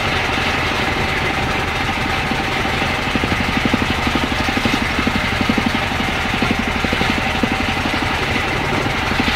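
Fishing boat's engine running steadily while trolling, with a rapid even pulsing that becomes more distinct a few seconds in.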